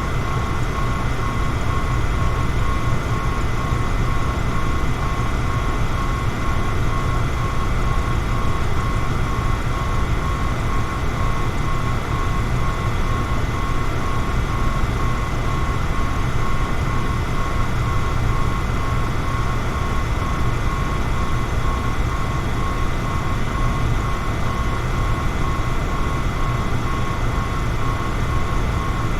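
Electric fan running steadily: a constant rush of moving air over a low hum, with a faint steady whine.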